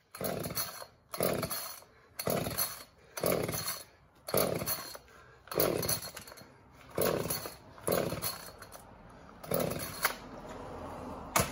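Two-stroke Echo chainsaw being pull-started, its recoil starter cord yanked about nine times roughly a second apart without the engine catching. A sharp click comes just before the end.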